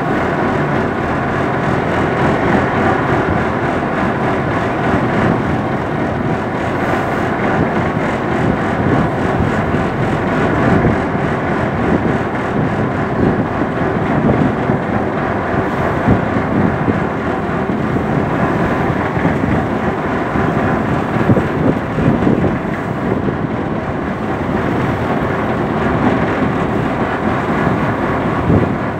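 A boat under way, its engine running steadily, with wind on the microphone.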